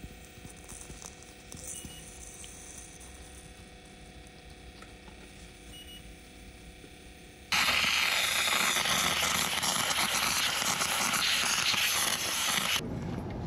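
Loud steady hiss of a handheld steam cleaner jetting steam onto an iced-over refrigerant service valve. It starts abruptly about halfway through and cuts off suddenly near the end. Before it there is only a faint steady hum.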